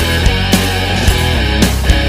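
Loud heavy rock background music with distorted guitar and a steady drum beat.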